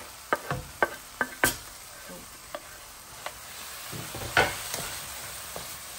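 Onion and tomato sizzling in a frying pan as chopped roasted aubergine is scraped in off a wooden board and stirred through, the utensil tapping and scraping against the pan. There are several sharp taps in the first second and a half and a louder knock a little past four seconds in.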